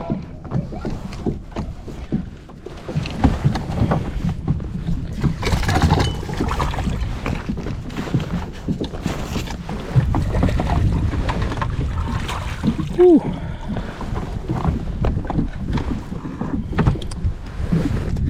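Knocks and clatter aboard a fishing kayak, gear and paddle bumping the hull at irregular moments, over a steady low rumble.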